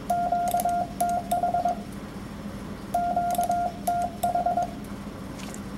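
Morse code sidetone from a ham radio transceiver, a steady single-pitch tone keyed in dashes and dots spelling QTH ("location") at about 22 words per minute. The word is sent twice, with a pause of about a second between, and faint clicks run alongside.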